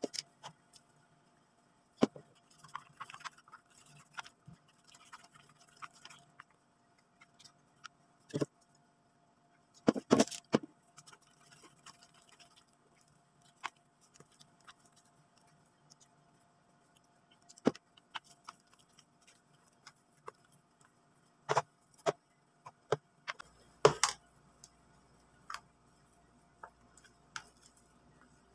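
Irregular sharp clicks and taps of a wooden craft stick stirring slime against the sides of a plastic tub as activator is mixed in, with a louder cluster of knocks about ten seconds in.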